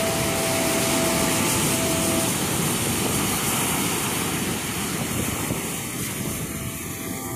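Ocean surf breaking and washing up onto a sandy beach around rocks: a steady rush of waves and foam.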